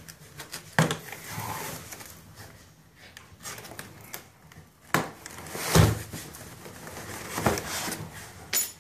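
A cardboard shipping box being cut open and its packaging pulled out and handled: scraping and rustling of cardboard, with several sharp knocks as the boxes bump against the desk.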